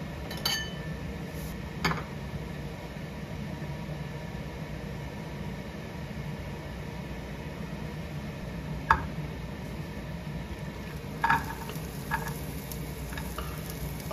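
Cookware being handled: a saucepan, tongs and a bowl knock and clink a few times, the sharpest about 9 seconds in, over a steady low hum. Near the end, chopped green chili and garlic start sizzling in the saucepan on the hob.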